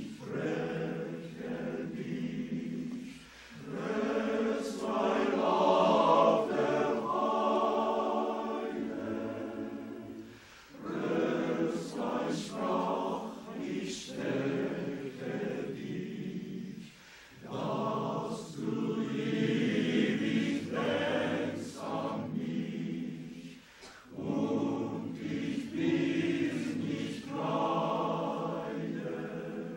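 Men's glee-club choir singing in several phrases, with short breaks between them and crisp sibilant consonants.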